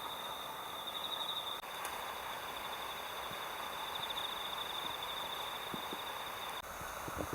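Insects trilling in a steady, high, pulsing chorus, typical of early-autumn crickets.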